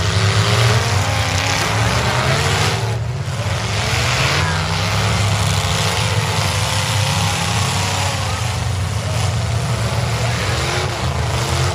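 Several demolition derby cars' engines running and revving together: a loud, steady low drone with revs rising and falling throughout.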